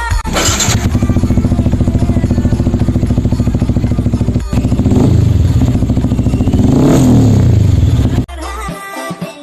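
Motorcycle engine running through a Venomous Hector aftermarket exhaust. It idles with an even, rapid pulsing, then is revved up and let fall twice, about halfway and again near the end, before cutting off.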